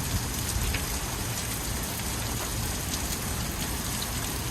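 Heavy rain falling steadily in a severe thunderstorm, with a few sharp ticks of hailstones landing here and there.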